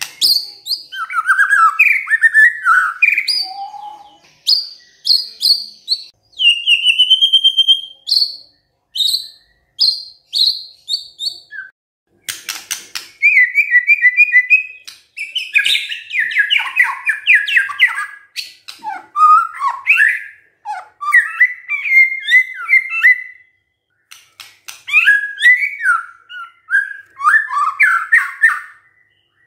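White-rumped shama singing loudly in full song (gacor): a fast run of varied clear whistles, slurred warbles and rattling notes, breaking off briefly three times between phrases.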